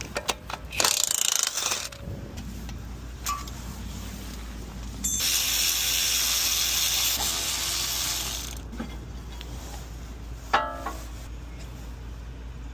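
Hand tools working on a car's brakes: clicks and a ratchet wrench, a hiss lasting a few seconds in the middle, and a sharp metal clink that rings briefly near the end.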